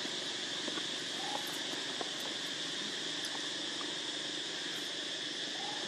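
Steady, high-pitched insect drone from an outdoor insect chorus, with two faint short chirps, one about a second in and one near the end.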